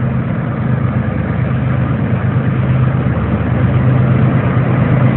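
Diesel locomotive engine, a CSX GE ES40DC leading a freight train, rumbling steadily and growing gradually louder as it approaches.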